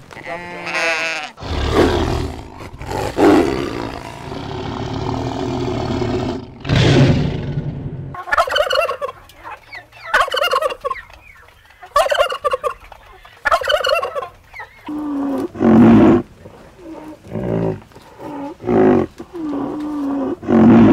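Sheep bleating, then domestic turkeys gobbling in a string of short calls about a second apart, followed by a few lower-pitched animal calls near the end.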